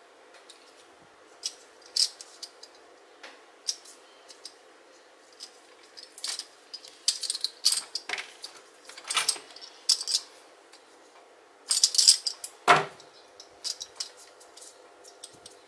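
Irregular light clinks, clicks and rustles of metal bag fittings and yarn being handled, with a louder knock near the end.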